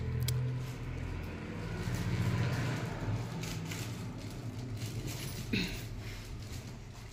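A shawl and its plastic wrapping rustling as they are handled, over a low steady hum. A brief sharp noise comes about five and a half seconds in.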